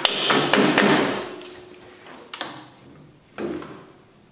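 Steel mounting bolt being pounded through an engine bracket and a frame bracket: a quick cluster of sharp metal knocks in the first second, then a single knock about two and a half seconds in.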